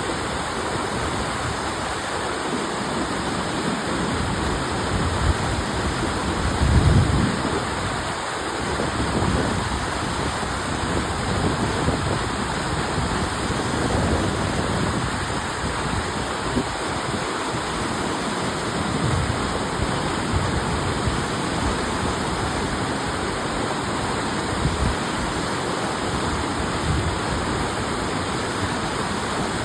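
Steady rushing water, a constant hiss with deeper swells coming and going, the strongest about seven seconds in.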